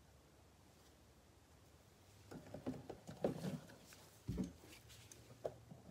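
A cardboard trading-card blaster box is picked up and handled with a nitrile-gloved hand: faint rustling and light scrapes, with a single soft knock about four seconds in.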